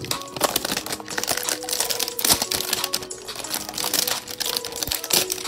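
Clear plastic shrink-wrap crinkling and crackling in the hands as it is stripped off a box of trading cards, with dense, irregular crackles throughout.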